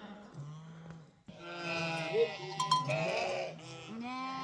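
Flock of sheep bleating: a faint low call in the first second, then several overlapping bleats of different pitches from about a second and a half in, with a couple of sharp clicks in the middle.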